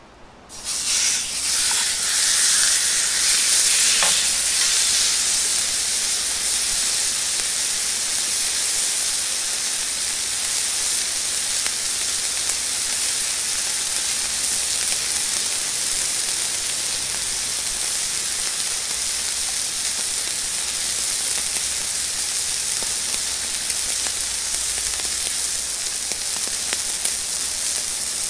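Raw beef steak sizzling in a hot, oiled cast iron pan, the sizzle starting suddenly about half a second in as the meat goes in and then holding as a loud, steady, high hiss.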